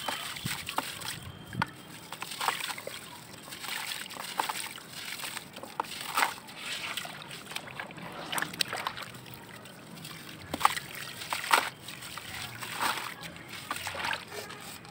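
A dry, gritty grey block being crumbled by hand into a basin of water: crunching, crackling breaks and falling grit mixed with splashing and sloshing as the hands stir the wet paste. There are two sharper cracks about two-thirds of the way through.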